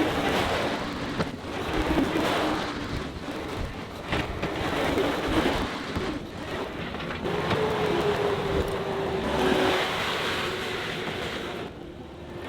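Diesel engine of a John Deere 325G compact track loader running under load while grading, its pitch rising and falling as the machine works.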